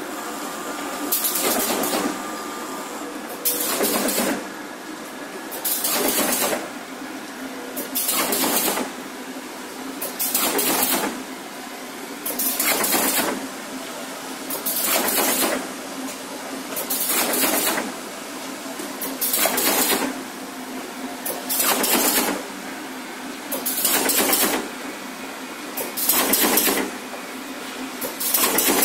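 Automatic cardboard partition assembly machine running in a steady cycle: a steady hum with a loud, hissing burst about every two seconds as each partition is assembled.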